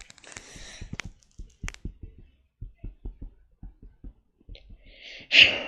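Handling noise from a hand-held camera being carried about: soft, irregular low thumps and rustling, with one short, loud rush of noise near the end.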